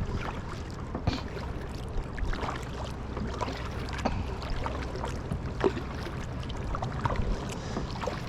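Kayak paddling on a lake: the paddle blades dip and splash at irregular intervals while water laps against the hull, over a low steady rumble of wind on the microphone.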